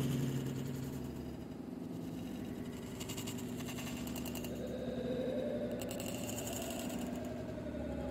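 A steady machine hum, like a small motor running, with no distinct events.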